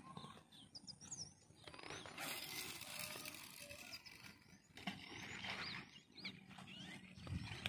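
Small birds chirping by a lake: scattered short, high calls, some rising and some falling, over a faint outdoor hiss that grows stronger for a few seconds in the middle.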